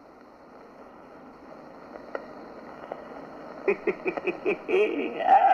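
Low film-soundtrack hiss. About three and a half seconds in, a person's voice makes a quick run of short pitched sounds, about four a second, then near the end a louder, higher, wavering whine-like vocal sound.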